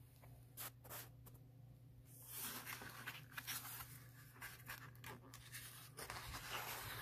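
Paper pages of a hardcover picture book being handled and turned: a few light taps, then paper rustling and sliding from about two seconds in.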